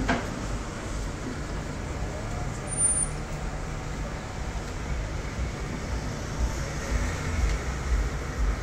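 Street traffic: car engines running and cars driving past, a steady low hum of road noise.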